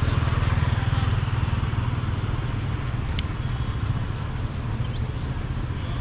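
Street traffic with a motorbike engine running, a steady low rumble that is loudest in the first second or so and then eases off a little.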